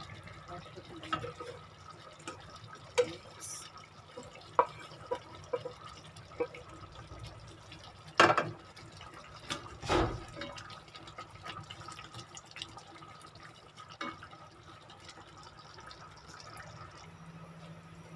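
Beef stew bubbling in a cast-iron pot, with scattered light clicks and knocks from a wooden spoon stirring green beans into the pot; the two loudest knocks come about eight and ten seconds in.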